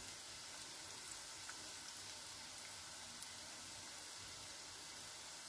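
Breadcrumb-coated rice balls deep-frying in corn oil over a low flame: a steady, faint sizzle with a few small pops.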